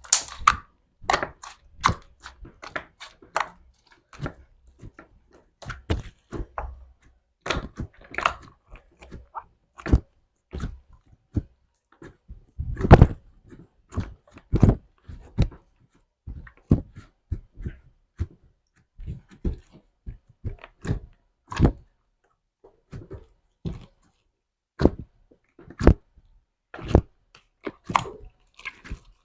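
Slime being squeezed and worked by hand: irregular short clicks and pops, one to three a second, with the loudest about halfway through.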